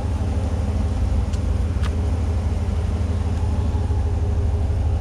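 A 2021 Ram 1500 pickup's engine idling with a steady low rumble, heard close by at the rear of the truck.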